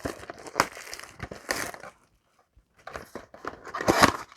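Trading-card packaging being handled and opened by hand: crackling, crunching rustles of cardboard and foil wrapper, a brief pause about two seconds in, then a louder crunch near the end.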